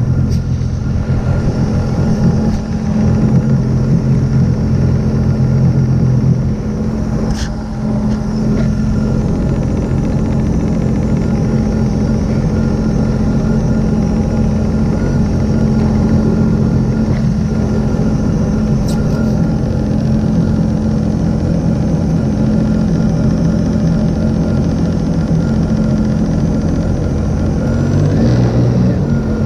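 Sea-Doo RXP-X 300 jet ski's supercharged three-cylinder Rotax engine idling steadily at no-wake speed, its note shifting slightly about six seconds in and again near the end.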